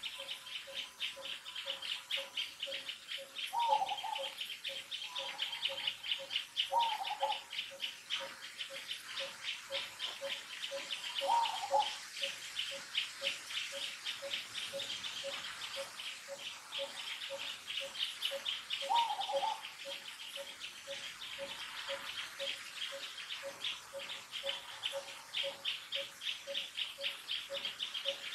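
Outdoor ambience of birds and insects calling: a fast, steady train of high chirps and a lower note repeated at an even pace, with a few short falling calls now and then.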